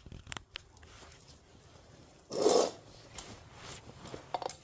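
Recoil starter housing being handled and fitted onto the engine: scattered light metal clicks and taps, with one short scraping rub about two and a half seconds in.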